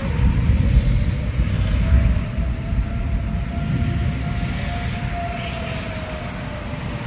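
Outdoor tornado warning siren sounding, a single wailing tone that rises slowly over several seconds and then begins to fall, heard under a loud, low rumble that is strongest in the first couple of seconds.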